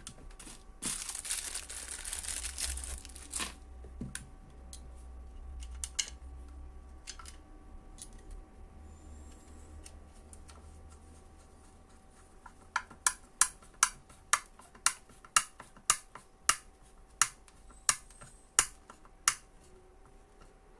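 Handwork mounting a part on a testing board: a short rasping sound, a few scattered clicks, then about a dozen sharp knocks, quick at first and then spacing out to around one and a half a second.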